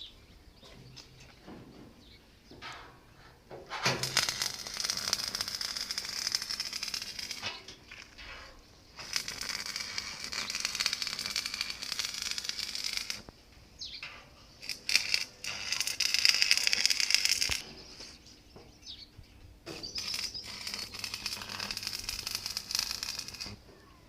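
Stick (arc) welding on thin square steel tube: the arc crackles and sizzles in four runs of a few seconds each, with short pauses between.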